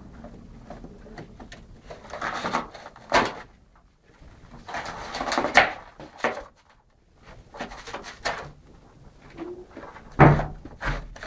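A setter tearing and chewing a cardboard box with its teeth: irregular bursts of ripping, crackling cardboard with short pauses between them. Near the end there is a loud thump.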